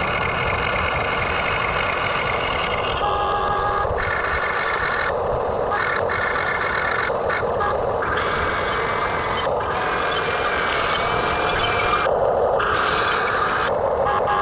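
Radio-controlled backhoe excavator running: a steady mechanical drone with high whining tones that shift every second or two as it works.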